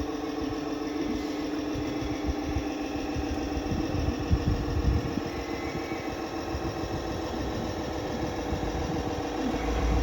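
An engine-like drone running steadily at an even pitch, with uneven low rumbling underneath.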